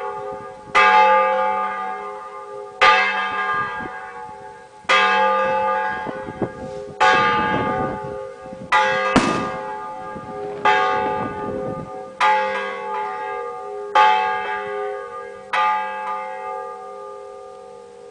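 Church bells of the Igreja de Santa Efigênia in Ouro Preto ringing: about ten strokes, roughly two seconds apart, each ringing on and slowly fading into the next. Near the middle two strokes fall close together.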